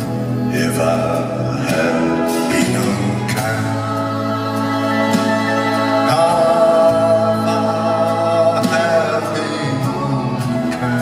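Music with singing: a slow song, its voices carried over long held chords.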